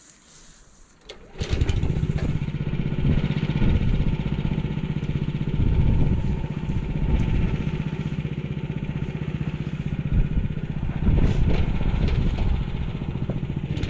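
MTZ-09N walk-behind tractor's engine starting abruptly about a second and a half in, then running steadily.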